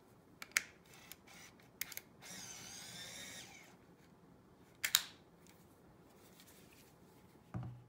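Olympus Mju Zoom Wide 80 compact 35mm film camera being operated in the hands: a few sharp clicks, then its small electric motor whirring for about a second, then a louder sharp click about five seconds in. A soft low thump comes near the end.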